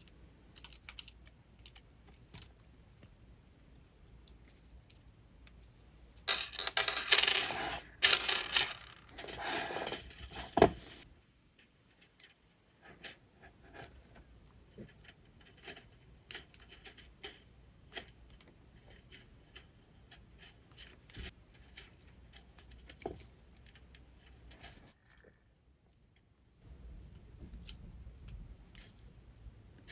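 Small metallic clicks and clinks of copper washer links, wire and pliers being handled while making wrapped loops. About six seconds in there is a louder jingle of loose metal pieces lasting several seconds, then only scattered light ticks.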